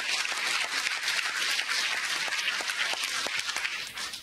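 Audience applauding, a dense mass of clapping that begins to die away near the end.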